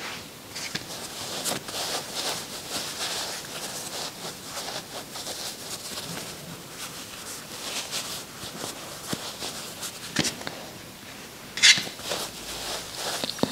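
Rustling of white fiberfill stuffing being handled by hand and pushed into a crocheted yarn piece, in uneven soft scratchy bursts, with one brief louder rustle near the end.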